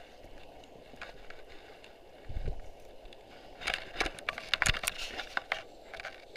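Close handling noise from a hand working right at the camera. There is a dull bump about two seconds in, then a quick run of sharp clicks and knocks around four to five seconds in, over a steady background hiss.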